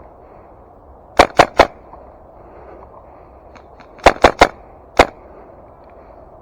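Airsoft gun firing single shots, sharp loud cracks: three in quick succession about a second in, three more around four seconds, then a last one a moment later.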